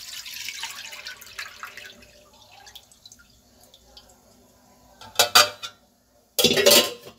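Milk pouring from a steel pot into a nonstick pan, a steady splashing stream that thins to a trickle and stops after about three seconds. Near the end, loud metal clanks as the steel pot is set down on the stove top.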